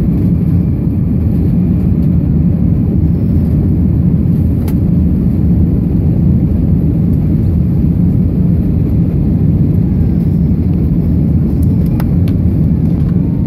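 Jet airliner cabin noise during the climb after takeoff: a steady, loud low rumble of engines and rushing air heard from inside the cabin.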